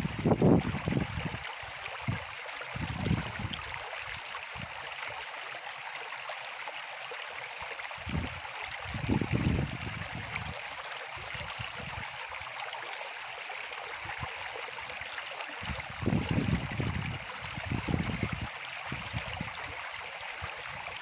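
River water flowing and rushing steadily, with several bursts of low rumble on the microphone, about four in all.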